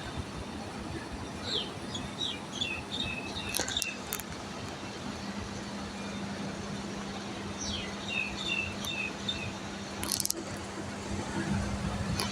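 Box air conditioner running, its coil fan and exhaust fan giving a steady rush with a low hum. Two short runs of high chirping and a couple of brief clicks sound over it.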